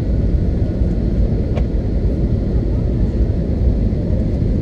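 Airbus A321 cabin noise on final approach, heard at a window seat: a steady low rumble of engines and rushing air with the flaps extended.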